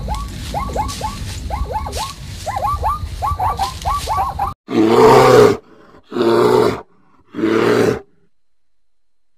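A rapid series of short, high, falling yelps, the barking call of a zebra. About four and a half seconds in, they give way to three loud growling roars from a brown bear, each about a second long.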